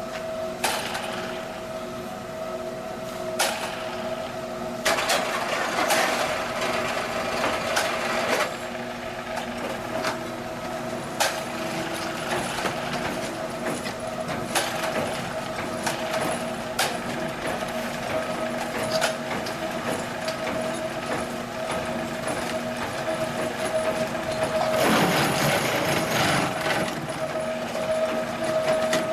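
QTJ4-25 semi-automatic concrete block machine running: a steady motor hum with sharp metallic knocks every few seconds as its parts move. A louder, noisy rattle rises for about two seconds near the end.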